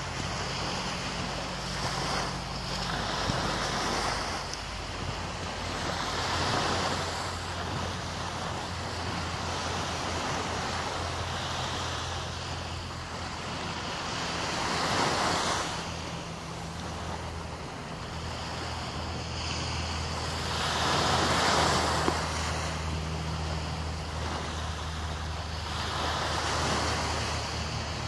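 Small waves washing onto a sandy shore, the wash swelling and fading every several seconds, with wind and a low steady hum underneath.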